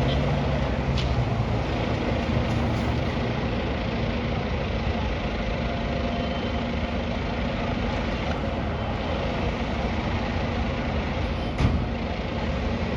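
Fire truck's diesel engine idling steadily, with one sharp knock about three-quarters of the way through.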